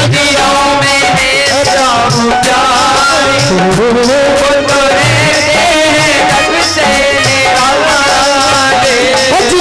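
Indian devotional song: a gliding sung melody with instrumental accompaniment over a steady hand-drum beat.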